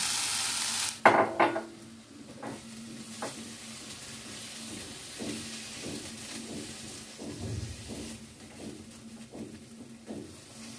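Eggplant chunks sizzling in hot oil in a nonstick wok for about a second. Then two sharp knocks, followed by a series of short scrapes and taps as a silicone spatula scrapes the fried eggplant out of the wok into a bowl.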